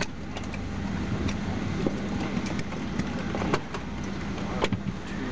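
Inside a Boeing 767 airliner cabin on the ground: a steady low hum from the aircraft's engines and air systems, with scattered light clicks and knocks.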